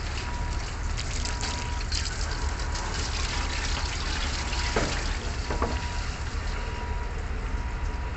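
Water running from a garden hose, a steady splashing hiss, with a couple of light knocks about five seconds in.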